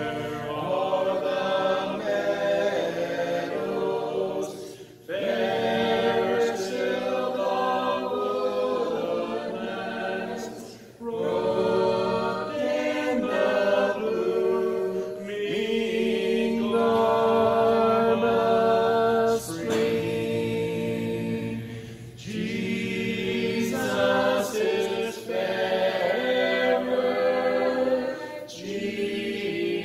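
Several voices singing a hymn a cappella in harmony, without instruments, in phrases a few seconds long with brief pauses between them.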